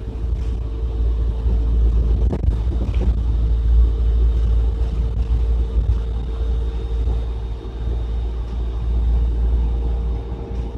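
City bus running, heard from inside the cabin: a steady low engine and road rumble with a constant hum, and a single sharp knock about two seconds in.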